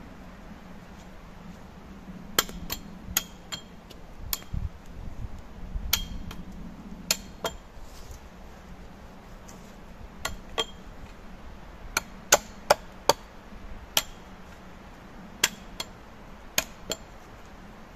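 Sharp blows of a hand tool striking wood, about twenty in irregular groups, some leaving a brief high ring.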